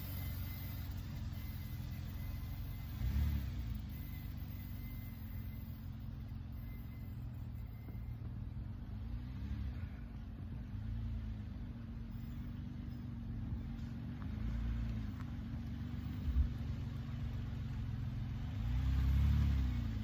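A minivan's engine revving up and down as the van works its way through deep snow, its wheels spinning and throwing snow. The revs rise and fall several times and are loudest near the end, as the van comes closer.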